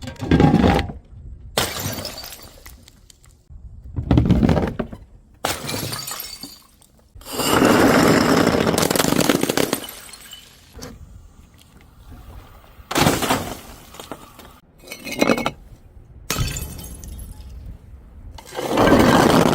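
Glass bottles and jars shattering, one after another: about eight separate crashes, each a sudden smash followed by a rattle of breaking glass, with a longer crash of about two seconds near the middle.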